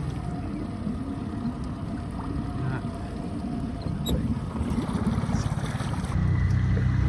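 A skiff's outboard motor running under way, with water and wind noise. About six seconds in, the motor's low drone grows louder and steadier.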